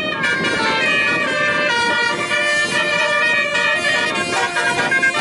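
Telolet horns playing overlapping multi-note tunes, the pitches stepping up and down without a break, over a steady crowd and engine hubbub.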